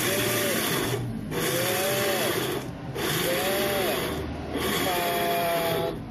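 Small electric blender pulsed four times, each burst a little over a second with brief stops between, grinding peanuts into a topping.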